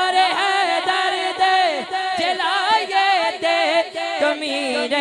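Unaccompanied devotional chanting of a naat, a melodic vocal line that rises and falls in a steady repeating pulse, amplified through a PA.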